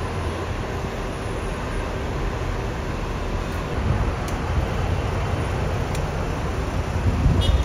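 Street traffic with buses and cars running close by: a steady low rumble that swells a little near the end.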